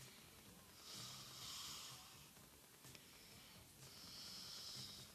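Near silence, with faint hissing breaths swelling and fading twice.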